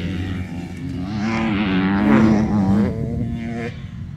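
Motocross bike engine accelerating hard, its pitch climbing to the loudest point about two seconds in, then falling away near the three-second mark as the throttle is closed for a jump.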